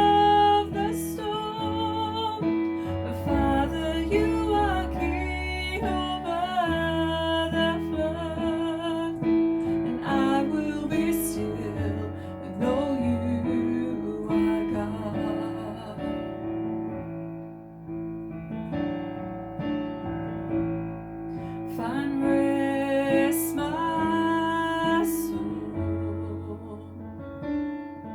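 Congregational worship song: a singing voice carrying a melody over piano or keyboard accompaniment, thinning to a quieter passage about two-thirds of the way through.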